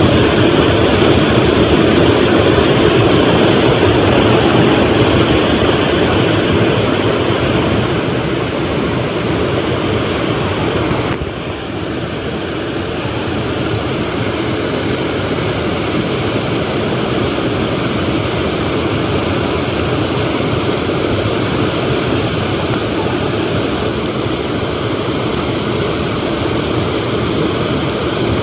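Steady roar of rushing river water, an even rush strongest in the low-middle range. It dips briefly about eleven seconds in and then runs on a little quieter.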